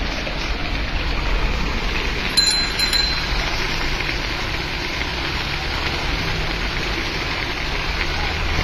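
Steady rain falling on a flooded street while a cycle rickshaw moves through the water, with a short high double ring about two and a half seconds in.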